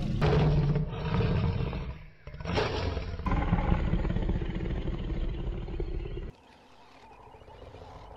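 Lion growling and roaring, rough and low-pitched, with a brief break about two seconds in. The sound falls away to a much quieter background about six seconds in.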